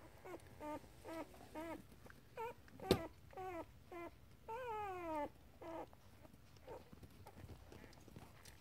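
Sleeping puppy making a run of about a dozen short, high, wavering growls and whimpers, with one longer falling whine about halfway through. A single sharp click comes near the three-second mark.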